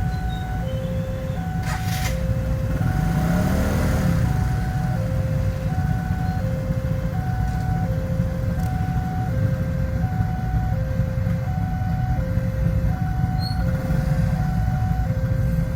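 Railway level-crossing warning alarm sounding its alternating two-note chime, a lower and a higher note back and forth about once every second and a half, over a steady low rumble of road traffic.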